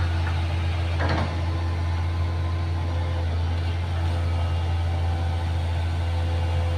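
Excavator's diesel engine running steadily under a low drone, with a brief knock about a second in.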